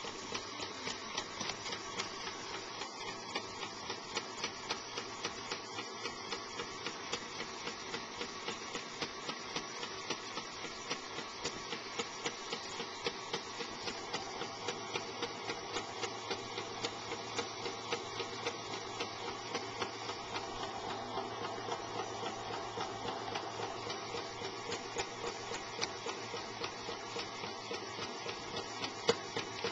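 LEGO XL motor running steadily, driving the pneumatic pump that works the garbage truck's compactor cylinders, with a regular pumping tick about twice a second.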